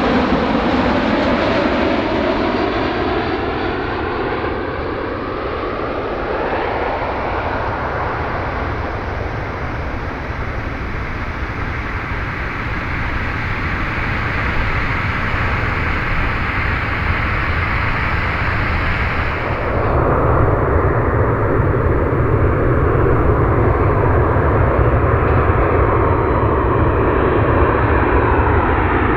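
Jet airliner engines running loud and steady as an arriving aircraft passes, with whining tones gliding upward over the first few seconds. About two-thirds of the way in, the sound changes abruptly to a duller engine noise, and near the end gliding whine tones return.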